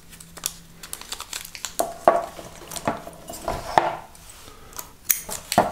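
Brown paper rustling and crinkling as it is handled, pressed around a small block and cut with scissors, with a string of small irregular clicks and taps.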